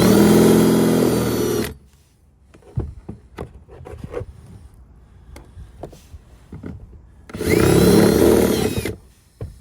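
Power drill spinning a step bit into a plastic kayak hull in two short runs: one that stops a couple of seconds in, and a second of about a second and a half near the end. Small clicks and knocks of handling come between the runs.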